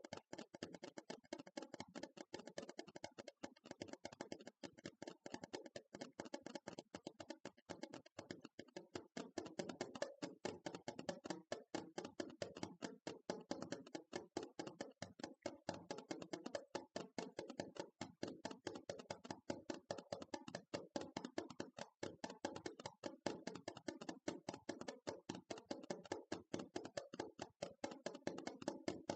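Rapid, continuous ASMR tapping, several light taps a second in an even stream, growing a little louder about nine seconds in.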